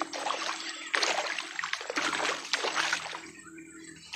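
Water splashing in repeated bursts about a second apart, dying down near the end: a big snakehead thrashing at the surface.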